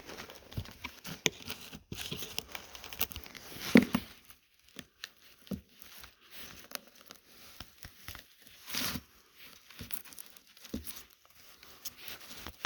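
Irregular scraping, brushing and clicking as packed sawdust is cleaned out of a Stihl MS 460 chainsaw's bar mount and sprocket area, partly scraped from the corners with the bar wrench. The loudest scrapes come about four seconds in and again near nine seconds.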